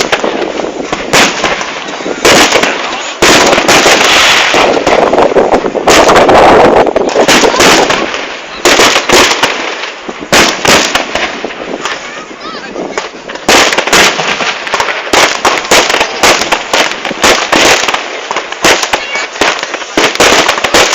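New Year's Eve fireworks: firecrackers and rockets going off in dense, overlapping bangs and crackles, several each second, with louder clustered barrages now and then.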